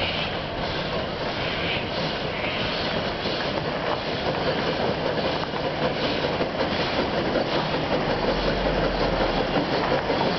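Puffing Billy narrow-gauge steam train running along the track, a steady rail noise that grows a little louder toward the end.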